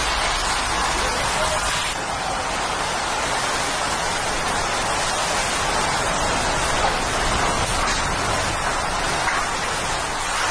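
Hurricane-force wind and driving rain: a steady, dense rush of noise.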